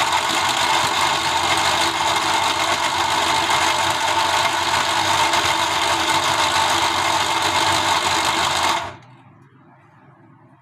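Electric mixer-grinder motor running at full speed, chopping slices of raw green papaya in its jar. The motor switches off about nine seconds in.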